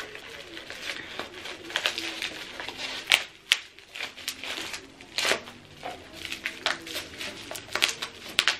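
Bubble wrap crinkling and tearing as it is pulled off a soap dispenser by hand. Irregular sharp crackles, loudest about three and five seconds in and again near the end.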